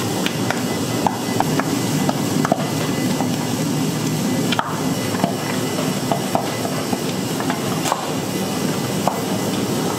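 Bakery work sounds: scattered light knocks and clicks of tools and dough handling on a work surface, irregular and a few each second, over steady background noise.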